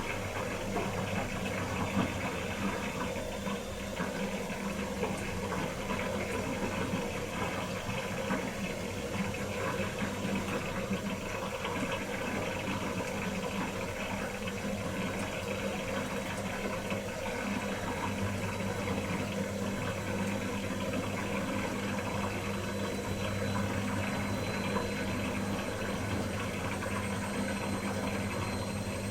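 Pro Action PRSLG96W slimline dishwasher running a wash program: water washing round inside the tub over the steady hum of its pump.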